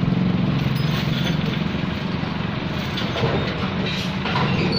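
Heavy diesel engine running steadily with a fast, even low throb.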